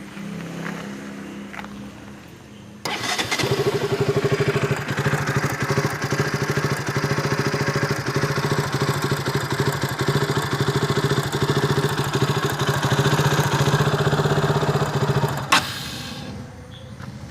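KTM RC 200's single-cylinder engine running, quiet at first, then loud and steady from about three seconds in. A sharp click near the end, after which it drops back down. This is the engine with its fault: stalling at idle and a 'tick tick' sound like a spark jumping, which the owner guesses came from a spark plug cap not seated properly.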